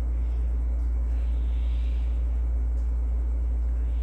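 A steady low rumble or hum, unchanging throughout, with a faint even hiss above it.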